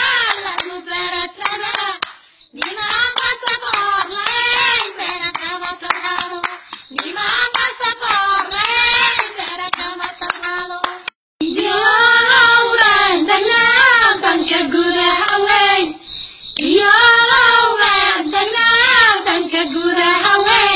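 Voices singing a Somali dhaanto song in short phrases with brief pauses every few seconds, to rhythmic hand clapping.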